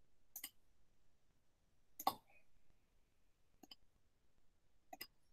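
Four faint computer mouse clicks spread over about five seconds, the one about two seconds in the loudest.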